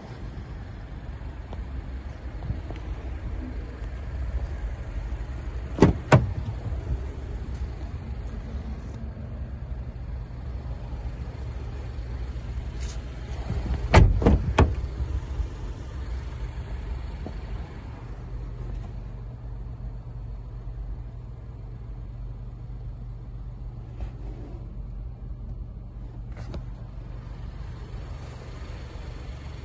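A Škoda Fabia's driver door being handled and opened: a cluster of clicks and knocks about fourteen seconds in, after a pair of sharp knocks about six seconds in, over a steady low rumble.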